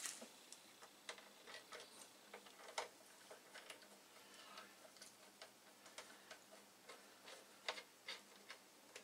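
Faint, irregular small clicks and taps of a low-torque screwdriver and small metal screws being handled and fitted, a few sharper clicks near the middle and end.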